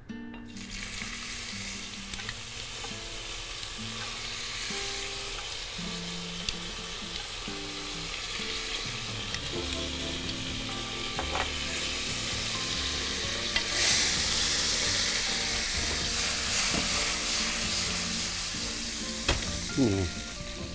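Hot olive oil sizzling in a non-stick frying pan with raisins frying in it. The sizzle grows louder about two-thirds of the way through, with a few light clicks along the way.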